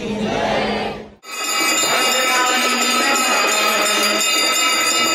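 Crowd noise that cuts off abruptly about a second in. Then many bells ring together continuously: the steady clamour of hand bells rung during the Ganga aarti.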